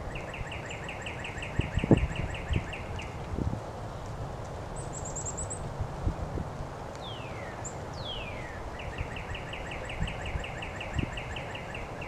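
A songbird sings a rapid, even trill of repeated notes for about three seconds, then sings again about seven seconds in: two falling slurred whistles followed by another trill. A thin, very high series of notes runs behind it. A few soft low knocks sound, the loudest about two seconds in.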